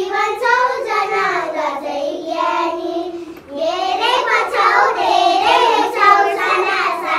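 A child singing a melody in held notes, with a short break a little after three seconds in.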